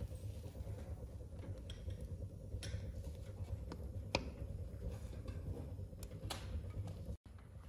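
Wood fire burning in a small stove under a pot of butter: a steady low rumble with a few sharp crackles, the loudest pop about four seconds in.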